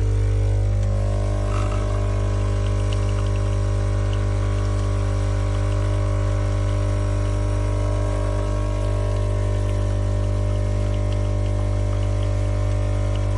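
A CASABREWS espresso machine's vibratory pump switches on abruptly and runs with a loud, steady buzzing hum, pushing water through the machine.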